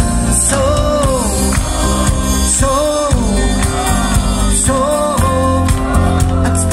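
Live band playing an upbeat song: drums and bass keep a steady beat with regular cymbal crashes, under a melody line that comes in short gliding phrases, three times.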